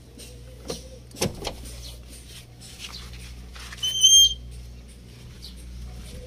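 Truck cab's grille release lever pulled: a couple of clicks and a sharp clunk in the first second and a half, as the freshly lubricated grille lock releases. About four seconds in comes a short, high whistling chirp, over a steady low hum.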